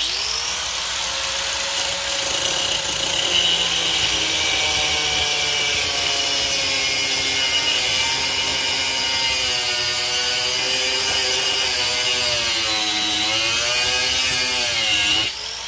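Corded angle grinder with a thin cutoff wheel spinning up with a rising whine, then cutting through a solid steel strap, its pitch wavering as the wheel is pressed into the cut. It is switched off near the end and winds down.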